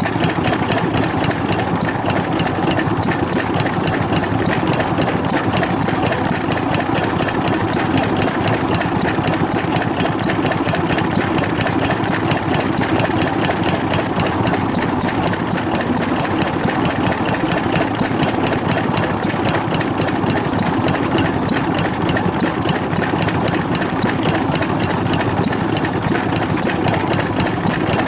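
Old stationary farm engine (hatsudoki) running steadily with an even, rapid firing beat.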